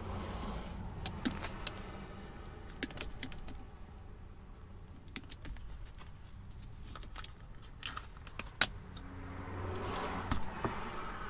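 Scattered sharp clicks and light rattling of hard parts being handled at a manual car's gear shifter, as the shift boot assembly is pulled apart and the bushing on the lever is worked; two louder snaps stand out, and a stretch of rustling comes near the end.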